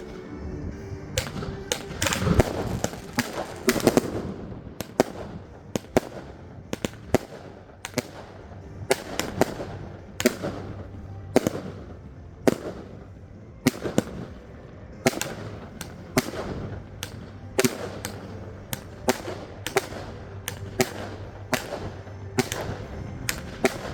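New Year's Eve fireworks: a long run of loud, sharp bangs from firecrackers and shells going off at irregular intervals, roughly one or two a second, over a steady background crackle and rumble.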